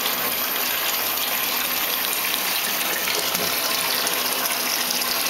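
Steady rushing water in a bathtub.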